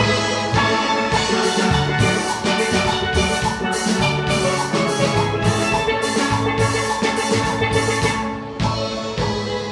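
Steel orchestra of many steelpans playing a tune together, with ringing struck notes over a steady percussive beat.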